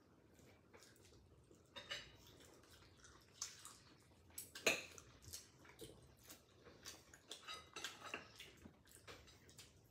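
Two people eating at a table: soft chewing and mouth sounds from eating cherries and other food, with scattered light clinks of forks and dishes.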